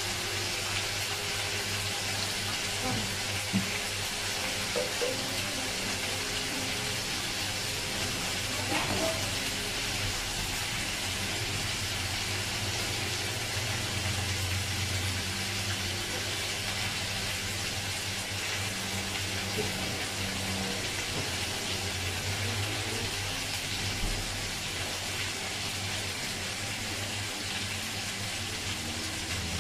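Marinated lamb chops sizzling steadily in a non-stick frying pan over a gas flame, with a few small pops and a low hum underneath.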